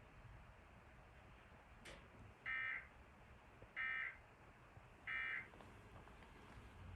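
Three short bursts of Emergency Alert System digital data tones, a harsh buzzing screech, each under half a second and about 1.3 s apart: the end-of-message code that closes the Required Weekly Test. A single faint click comes about two seconds in.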